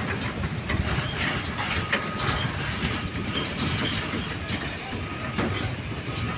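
Loaded Volvo dump truck driving slowly past on a rough haul road: a steady low engine rumble with dense clanking and rattling from the body and chassis.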